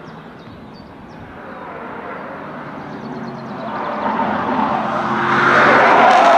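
Audi RS6 prototype's twin-turbo V8 approaching under power, starting faint and growing steadily louder to a loud exhaust note near the end.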